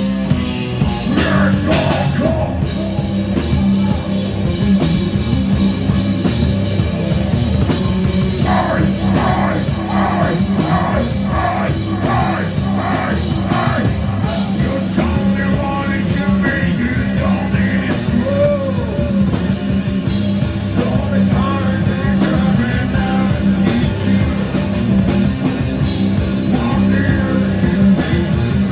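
Live rock band playing loudly, with a singer's vocals over the band.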